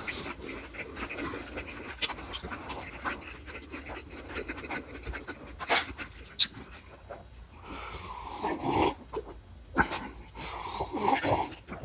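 Close-miked chewing with wet mouth clicks and smacks and heavy breathing through the nose, then sipping and swallowing a drink from a glass near the end.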